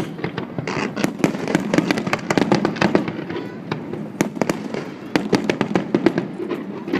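Fireworks display going off: a dense run of sharp bangs and crackles, several a second, overlapping one another.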